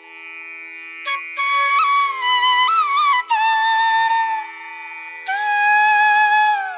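Background music: a bamboo flute playing a slow, ornamented melody with bending notes over a steady drone.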